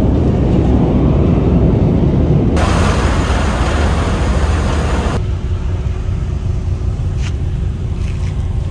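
Steady low rumble of a car ferry under way, with wind and the rush of water along the hull. For a few seconds in the middle a harsher, brighter rushing hiss of the churning wake takes over, then the rumble settles back with a faint steady hum.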